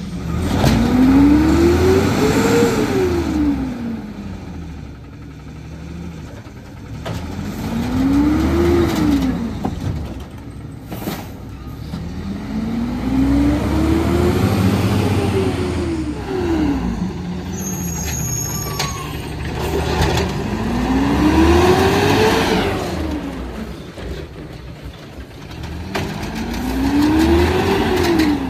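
Natural-gas engine of a 2011 Peterbilt 320 garbage truck with an Amrep automated side-loader body, revved hard five times. Each rev rises and then falls in pitch over a few seconds, with the engine settling back between them.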